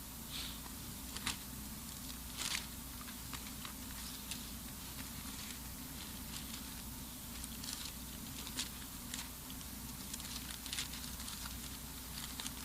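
Paper pages being handled and turned, giving short scattered rustles and crinkles, over a steady low hum.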